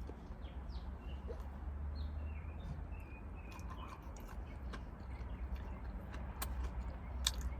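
Faint short birdlike chirps and scattered sharp clicks over a low steady hum; the loudest clicks come near the end.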